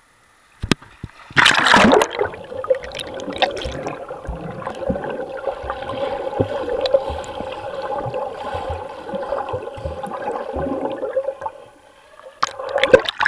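A handheld action camera plunges underwater with a loud splash, then picks up muffled underwater gurgling and sloshing with scattered knocks against the housing. Splashes come again near the end as it breaks the surface.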